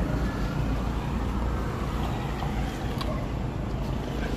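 Steady low rumble of motor traffic, with a faint engine hum and a few light clicks.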